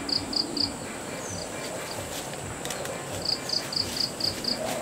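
Insects chirping outdoors: runs of short, evenly spaced high chirps, about four a second, at the start and again in the second half, over a steady high whine.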